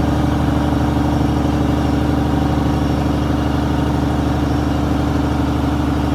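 A heavy diesel engine running steadily at constant speed, a low even drone with no change in pitch.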